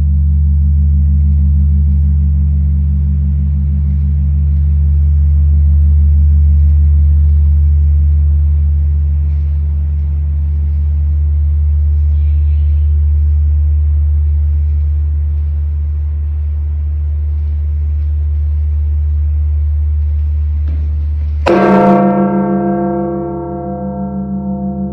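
The Campana Mayor, the great bell 'Santa María de Guadalupe' of Mexico City's Metropolitan Cathedral, tolling a slow 100-stroke death knell. The deep hum of the previous stroke rings on and slowly fades. Near the end the bell is struck again, with a sharp clang and bright ringing tones over the low hum.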